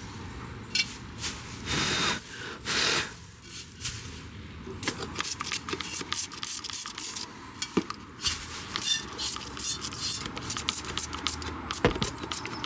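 Potting soil being scraped and poured by hand: two short pours about two and three seconds in, then a run of quick small scrapes and ticks as the soil is worked.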